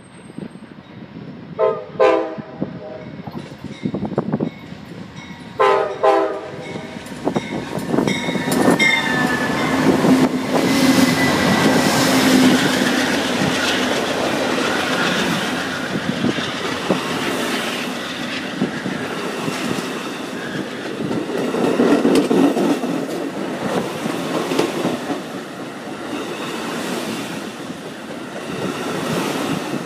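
Amtrak passenger train blowing its horn in two long blasts as it approaches, then its diesel locomotives and Superliner cars passing close by at speed, with a steady rumble and wheels clattering over the rail joints.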